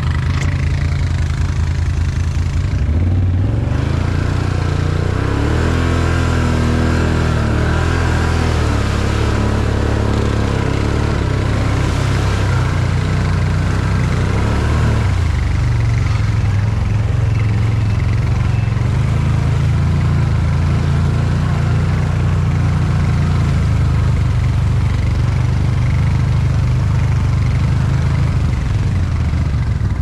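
Can-Am Outlander 1000 ATV's V-twin engine running under way, revving up and down repeatedly in the first half, then holding a steadier note.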